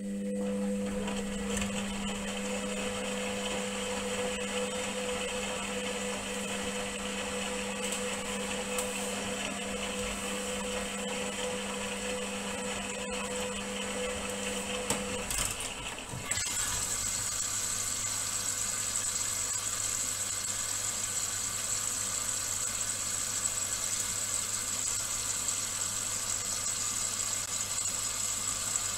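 Indesit front-loading washing machine mid-wash with a load of towels: the drum motor runs with a steady whine that stops about halfway through. About a second later a lower, steady hum takes over while the drum stands still.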